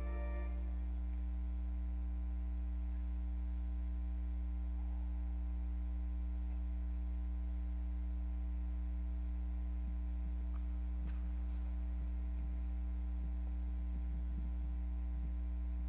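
Low, steady electrical mains hum, unchanging in pitch and level, after the last notes of music fade out in the first second.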